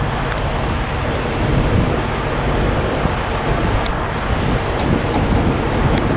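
Heavy diesel truck engines running steadily, mixed with wind rumble on the microphone.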